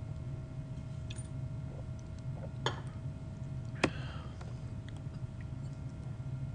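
Low steady hum with a few sharp, scattered clicks, the loudest just before four seconds in.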